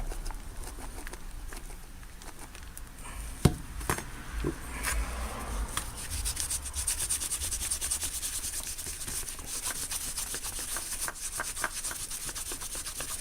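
Wet rag scrubbing cleaner into copper vise soft jaws, quick steady back-and-forth rubbing strokes that lift the grime. A sharp knock about three and a half seconds in is the loudest sound.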